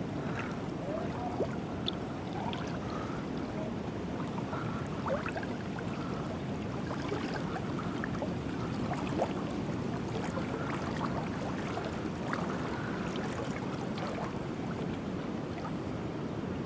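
Pool water sloshing and splashing around a person moving through it, a steady wash with many small drips and splashes.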